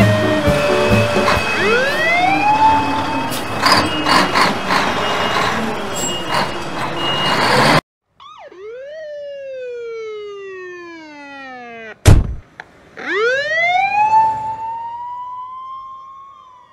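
Police siren wailing over a noisy first half with a short rising whoop, which cuts off abruptly about eight seconds in. Then a clear siren wail falls slowly, a sharp, very loud click comes near the twelve-second mark, and the wail rises again.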